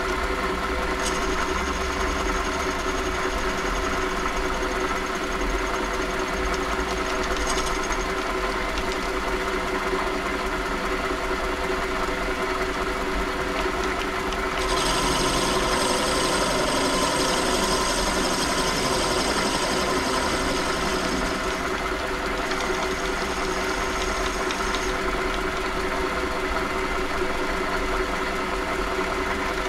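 WM210V variable-speed bench lathe running steadily, its motor and drive giving a constant mechanical hum with a few steady tones. A higher hiss joins about halfway through and lasts several seconds.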